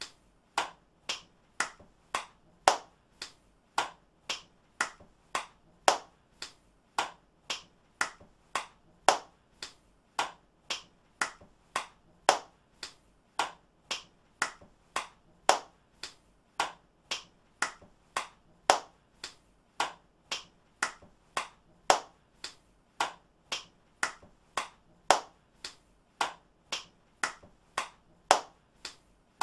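Single hand claps, one person clapping in an even rhythm of about two claps a second, some claps louder than others.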